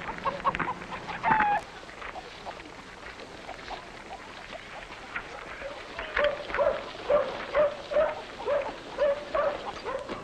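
A dog barking repeatedly in short barks, about two a second, with a lull of a few seconds in the middle.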